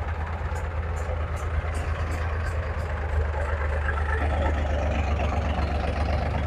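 Diesel tractor engines running at a low, steady idle, with a faint high ticking about two or three times a second in the first few seconds.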